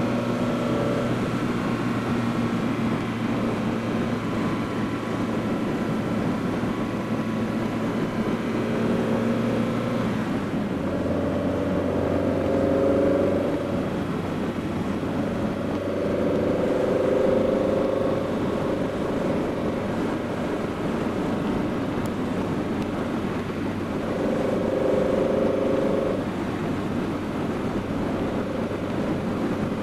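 BMW E30 320is's S14 four-cylinder engine, fitted with Schrick cams, a carbon airbox and an Evo2 muffler, running at steady cruising revs under wind and tyre noise. Its note drops slightly about ten seconds in and then holds steady.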